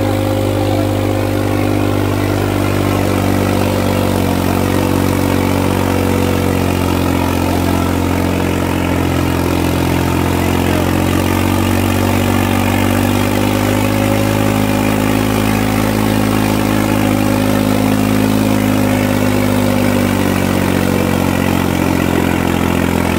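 Modified New Holland tractor's diesel engine running hard under load as it drags a weighted harrow through sand. The engine note is steady, sagging slightly about four seconds in and picking up again past the middle.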